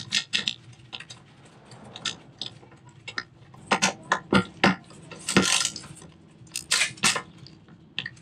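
Socket ratchet clicking in short, irregular runs, with metal-on-metal clinks, as a wire clamp bracket is tightened onto an RV power step motor.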